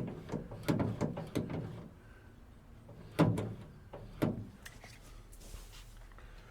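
Clicks and metal clunks of a 1963 Chevrolet C10 pickup's door and replacement latch being worked: a run of clicks in the first second and a half, then two louder clunks about three and four seconds in. The latch is not yet catching properly and still needs adjusting.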